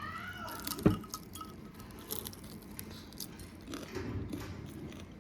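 Cutlery clinking against plates and bowls during a meal: a run of small clicks and clinks, with one sharper knock about a second in.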